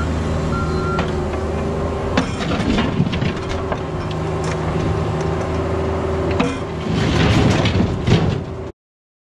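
Cat 304 mini excavator's diesel engine running under load with a steady whine, as its bucket and thumb push a boulder across the steel floor of a roll-off dumpster. Occasional knocks, then a clattering, scraping stretch of rock and steel near the end, before the sound cuts off suddenly.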